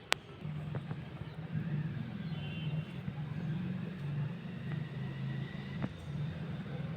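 A sharp click, then a steady low engine drone that sets in about half a second later and keeps running.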